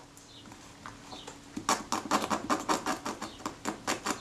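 Rapid scraping of a small pointed metal tool over a small leatherette patch, working off old layers of adhesive. It starts about a second and a half in and goes in quick short strokes, about five a second.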